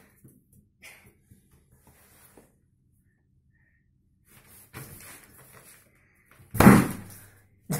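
A party balloon bursting with one loud bang about two-thirds of the way in, popped by a puppy playing with it, after a few seconds of faint scuffling; a second short, sharp sound follows right at the end.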